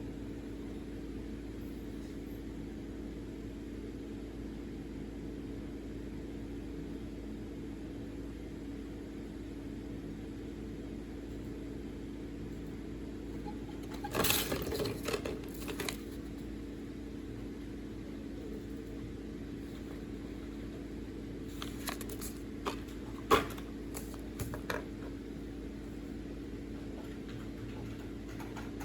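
Plastic LEGO bricks clicking and rattling as they are handled, in a short cluster about halfway through and a few single sharp clicks later, one much louder than the rest. A steady low hum sits underneath throughout.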